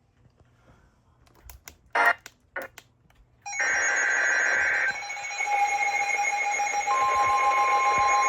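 Emergency Alert System alert tones from a receiver. After a few clicks and short blips, several steady electronic tones with static hiss come on about three and a half seconds in. Another pure tone joins near seven seconds.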